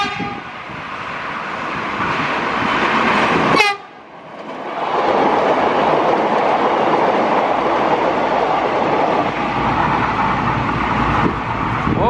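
Trains passing at speed through a level crossing. A train horn sounds briefly at the start, and again around three and a half seconds in with a falling pitch before it cuts off abruptly. From about four and a half seconds on, the steady loud rush and rumble of the green-and-white Bandara airport train running past fills the rest.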